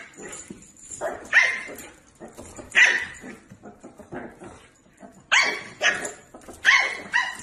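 A small puppy yapping: about six short, high barks, some in quick pairs, spaced by pauses of a second or more.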